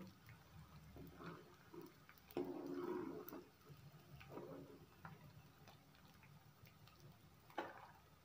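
Faint kitchen sounds of a steel ladle scooping puffed edible gum (dink) out of hot frying oil in a nonstick kadhai: scattered light clicks and ticks of the ladle against the pan.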